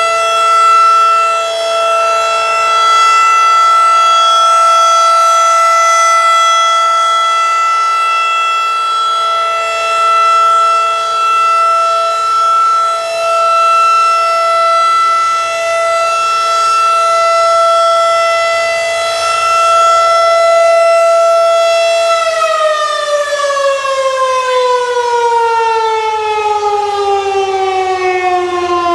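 Federal Signal 2001-SRN (2nd generation) electromechanical outdoor warning siren sounding a steady tone, its level wavering slightly. About 22 seconds in it starts winding down, the pitch falling steadily.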